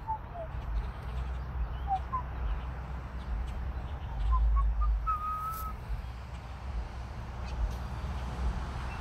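Low, gusty rumble of wind on the microphone, strongest a little after four seconds in, with a few short whistled notes that rise or fall, ending in one held whistle about five seconds in.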